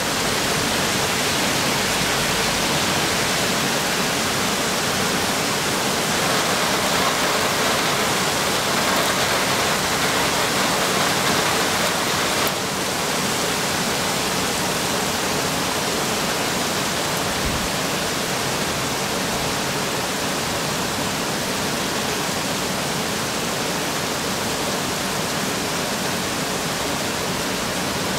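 Heavy rain falling on a copper-clad church dome: a steady, dense hiss of drops hitting the metal roof, slightly quieter from about twelve seconds in.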